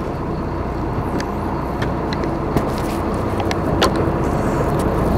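Steady low rumble of a boat's engine ticking over out of gear, mixed with wind and sea noise, with a few sharp clicks scattered through it.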